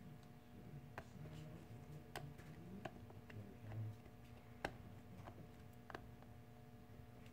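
Faint, irregular clicks and taps of small tools and plastic phone parts being handled during a smartphone screen repair, about one every second or so, over a steady electrical hum.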